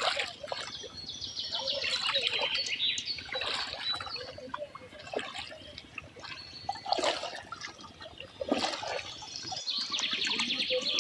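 Water splashing and sloshing as a bamboo-framed push net is worked through shallow river water, with high chirping bird trills near the start and again near the end.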